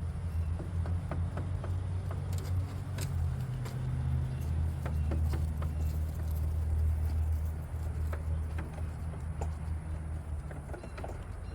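Goats eating, with scattered crisp clicks and crunches of chewing feed over a steady low rumble.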